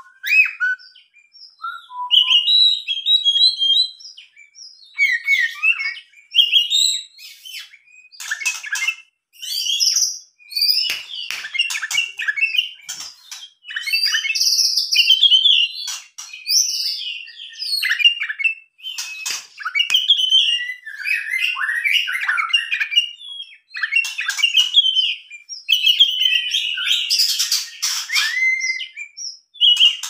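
Oriental magpie-robin singing a long, varied song. Clear whistled phrases are mixed with harsh chattering rattles and clicks, broken by short pauses and busiest near the end.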